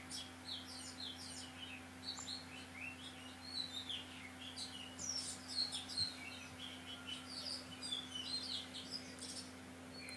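Small birds chirping in the background, many short, quick chirps one after another, over a faint steady hum.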